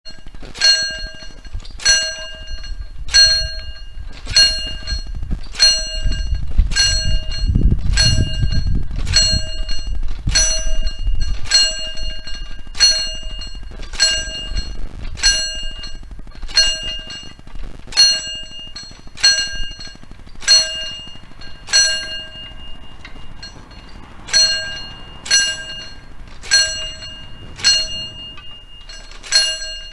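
Trojlístek pre-warning bell of a mechanical level-crossing barrier ringing single strikes, about one every second and a quarter, warning that the barriers are about to be lowered. The barrier arms start coming down near the end.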